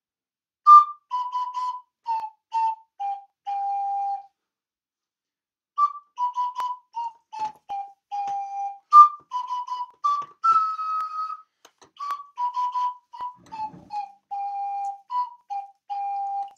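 Double ocarina playing a short tune of clear, whistle-like notes that step down in pitch and end on a held low note. The phrase pauses for about a second and a half, then plays again in a longer version.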